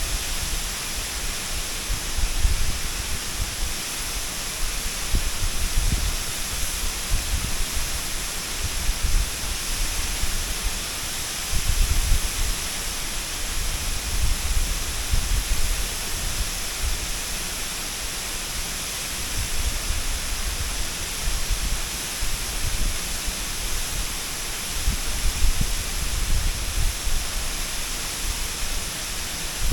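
Waterfall: a steady rush of falling water, with irregular low rumbles every few seconds underneath.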